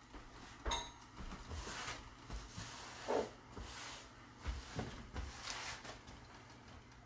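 Kitchen handling sounds on a stovetop and counter: a sharp metallic clink with a brief ring about a second in, then a few softer knocks and bumps of pots and utensils.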